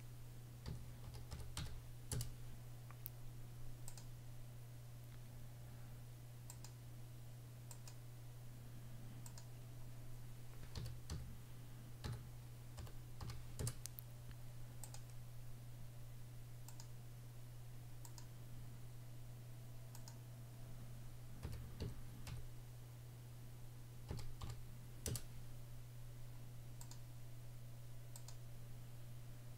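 Scattered clicks of a computer mouse and keyboard as dimensions are picked and values typed in, over a steady low hum.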